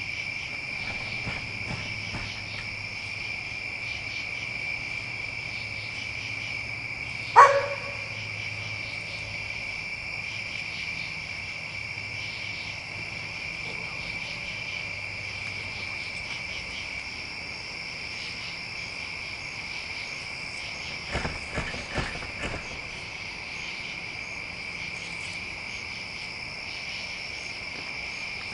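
Steady chorus of crickets singing at night. About seven seconds in there is one short, sharp, loud sound, and a few softer knocks come around twenty-one to twenty-two seconds in.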